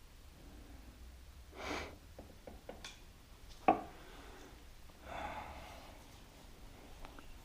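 Quiet hand work on metal: a few light tool clicks and one sharper clink about halfway through, between two audible breaths.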